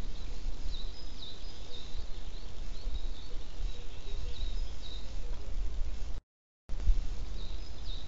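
Outdoor nest-camera microphone picking up a steady low wind rumble, with small songbirds giving a series of short high chirps. The sound cuts out completely for about half a second near the end.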